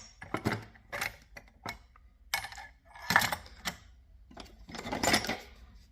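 Metal hand tools clinking and clattering against each other and the steel toolbox drawer as they are picked up and moved, in several short bursts of sharp clinks.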